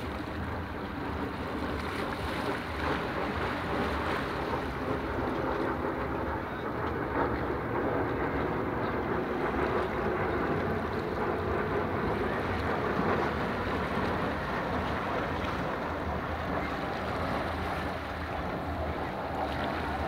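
Small sea waves washing against shoreline rocks, with wind buffeting the microphone.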